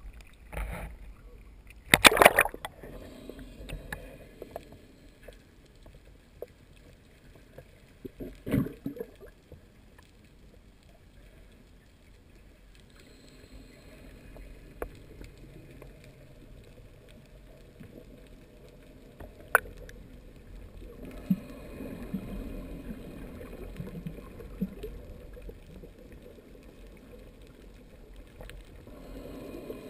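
Sea water sloshing and splashing against an action camera held at the sea surface and then under it. There is a loud splash about two seconds in and another around eight seconds. After that comes a low, muffled underwater wash with one sharp click past the middle.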